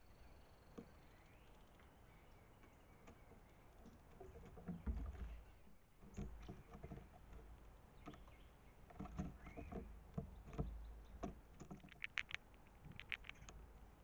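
Gray squirrel foraging on a seed-strewn wooden deck rail right by the camera: irregular light taps, scratches and clicks of claws and seeds on wood, with a few dull bumps against the camera.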